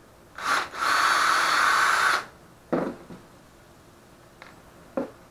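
Cordless drill driving a screw into pine boards: a short blip, then a steady run of about a second and a half. Two sharp knocks follow on the wooden workbench, one of them the drill being set down.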